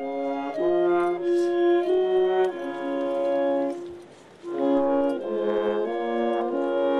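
A band of brass and woodwinds playing held chords that change every second or so, breaking off briefly about four seconds in and then resuming.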